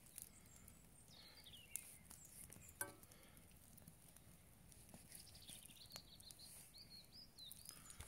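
Near silence with faint bird song: short wavering high chirps about a second in and again in a longer run near the end, and a few soft clicks.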